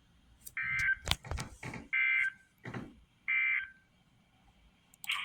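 Emergency Alert System end-of-message data bursts: three short, even data bursts about a second and a half apart, the digital code that closes an alert broadcast. There are a few sharp clicks between them, and a longer burst in the same range starts near the end.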